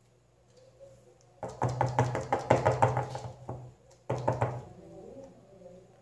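A quick run of sharp knocks and taps lasting about two seconds, then a shorter run about a second later: plastic tubs and a plastic spoon knocking on a countertop as soap paste is spooned and pressed into them.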